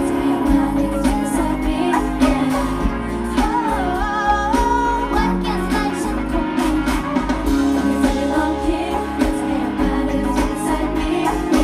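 Thai pop song performed live: a female lead voice singing into a handheld microphone over a band with drum kit and guitar.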